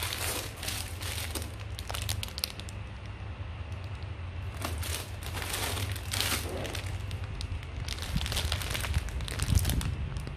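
Thin plastic produce bags crinkling as bagged vegetables are handled and set down, in several separate rustling bursts.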